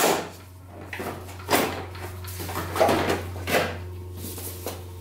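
Dirt-bike seat being worked loose and pulled off the frame: several knocks and scraping clunks as it comes free, the loudest right at the start and a few more over the next three or four seconds.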